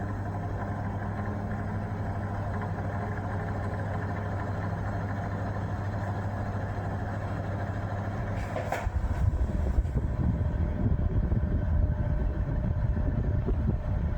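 1973 National F-30AAD table fan running on medium with a steady motor hum, its bearings and gearbox gummed with old grease so it runs slower than it should. About two thirds of the way in a switch clicks, and the fan speeds up with a louder rush of air.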